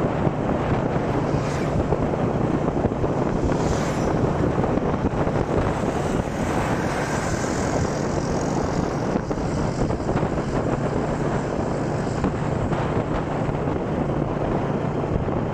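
Steady engine drone with wind and road noise from a vehicle driving along a paved road.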